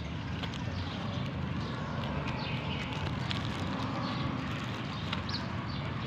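Feral pigeons pecking grain off pavement: light, irregular tapping clicks over a steady background hum, with a few faint high chirps.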